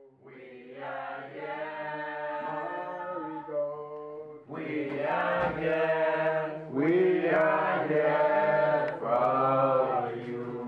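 Voices singing together in long held notes, a slow song that swells louder about four seconds in.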